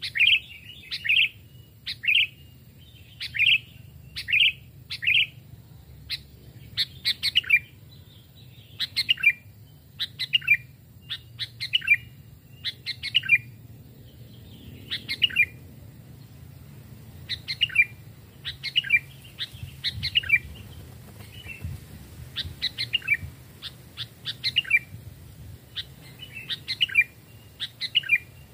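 Sooty-headed bulbul (kutilang) calling over and over, short chirped phrases repeated roughly once a second with a few brief pauses.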